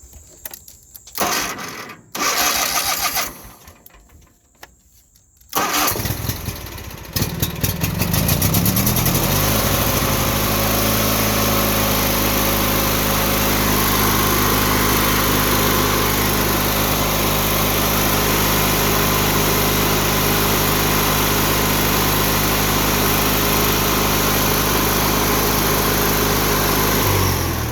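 Craftsman riding mower engine cranked in two short bursts, then started a few seconds later, revving up and running steadily for about twenty seconds before being shut off and winding down near the end. It is a test start after tracing an electrical short that the mechanic blames on a faulty or wrong ignition key switch.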